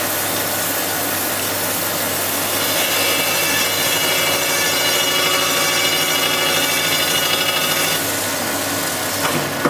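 Crankshaft grinder's wheel grinding a main journal of a 305 Chevrolet crankshaft under coolant: a steady hiss, with a high ringing whine from about three seconds in that dies away around eight seconds as the journal comes to size. A short click near the end.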